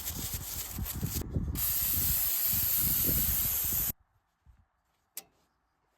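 Aerosol degreaser spraying in a hissing burst, a brief break a little over a second in, then a longer burst that stops suddenly about four seconds in. A single sharp click follows about five seconds in.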